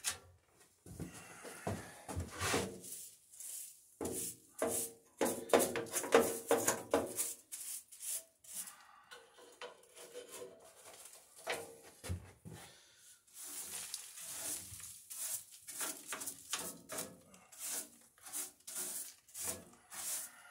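Brush sweeping sawdust out of a bandsaw's lower wheel housing: irregular scraping and rubbing strokes mixed with small knocks against the metal.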